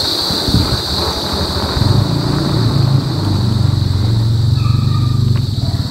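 Vuelo Cross e-bike riding along a concrete street at low speed: low rumble from the tyres and wind on the microphone, getting louder about two seconds in, over a steady high hiss, with a click near the end.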